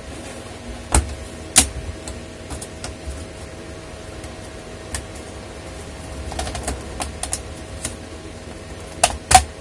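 Plastic snap-fit clips of a laptop's bottom case cracking loose as the case is pried off by hand: sharp clicks about a second in, a run of small ticks and rattles in the middle, and a louder pair of snaps near the end.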